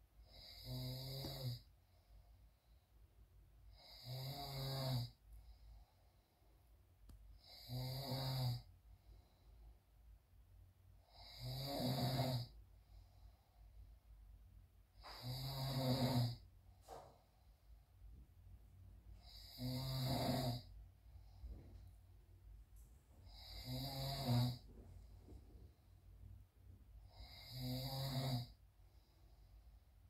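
A man snoring in his sleep: eight rhythmic snores, one about every four seconds, each lasting about a second.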